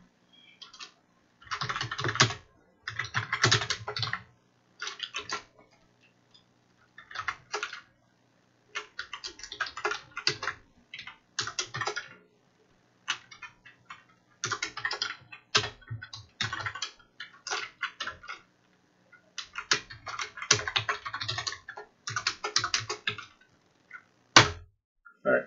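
Typing on a computer keyboard: quick runs of keystrokes in bursts, with short pauses between them.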